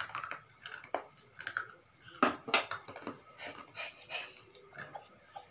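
Irregular clicks and knocks of tableware during a meal: plates, a glass and cutlery being handled and set against a table, with two louder knocks a little past the middle.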